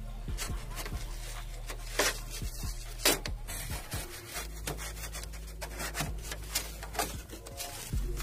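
Fibrous insulation pad on the underside of a 2004 Hyundai Elantra's hood being cut and torn away by hand: a run of irregular scratching, rubbing and ripping strokes. A steady low hum sits underneath.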